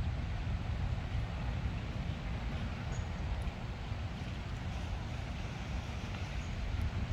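Wind buffeting the microphone in a steady low rumble, with a few faint, short high peeps from Muscovy ducklings, about three seconds in and again near the end.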